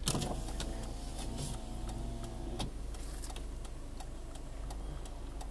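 Steady road and engine noise inside a moving car's cabin, with a few faint scattered clicks.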